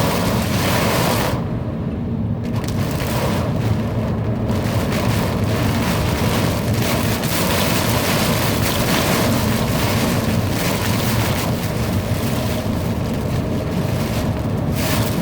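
Extreme downpour in a severe thunderstorm: heavy rain making a loud, dense, steady hiss, briefly duller about two seconds in.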